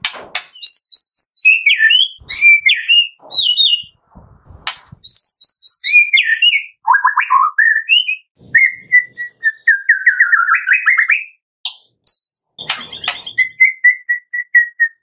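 White-rumped shama singing a varied song of loud, clear whistled phrases that glide up and down, with a fast trill of rising notes a little past the middle and a run of quick repeated notes near the end.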